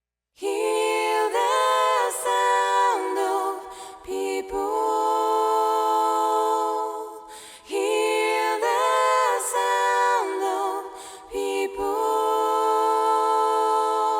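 A cappella intro of a J-pop song: several voices sing sustained chords in close harmony, with no instruments, in about four long phrases separated by short breaths.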